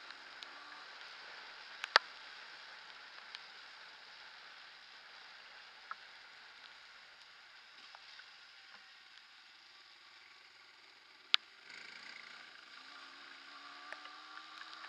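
Faint steady riding noise of a Yamaha DT230 Lanza two-stroke trail bike on a wet dirt track, with a few sharp knocks, the loudest about two seconds in and another about eleven seconds in; the engine's hum comes through faintly in the last few seconds.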